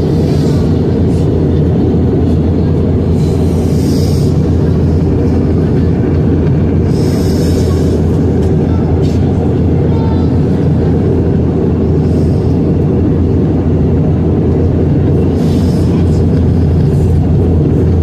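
Jet airliner cabin noise in cruise flight: a steady, loud low roar of engines and airflow, with a few brief higher hissing sounds.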